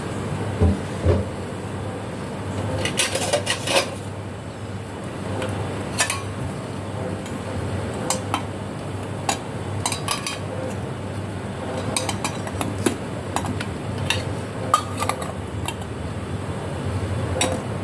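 Metal utensils clinking and scraping against cookware in irregular, scattered strikes, with a quick run of clinks about three seconds in, over a steady low hum.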